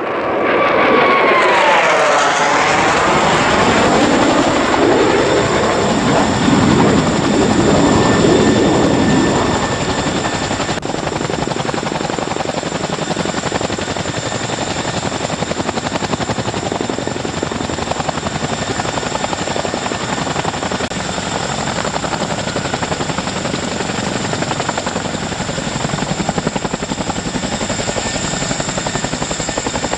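Boeing CH-47 Chinook tandem-rotor helicopter running close by. It is loudest in the first ten seconds, with a sweeping shift in pitch as it moves. It then settles to a steadier, slightly quieter sound with a thin high whine throughout.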